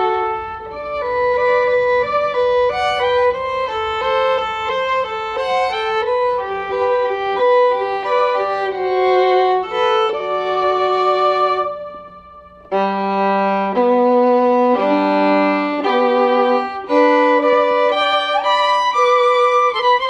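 Instrumental background music led by a violin playing a slow melody over sustained notes. The music dips almost to nothing for a moment about twelve seconds in, then comes back.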